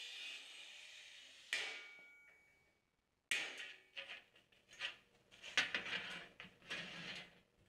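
Angle grinder with a cut-off wheel cutting through steel angle iron, with a second burst of cutting about a second and a half in that fades as the grinder winds down. After a brief gap come irregular clanks and knocks of steel angle iron being handled and set into a bench vise.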